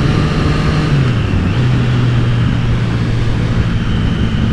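Motorcycle engine running at a steady cruise under a heavy rush of wind noise; the engine note drops a little about a second in and then holds steady.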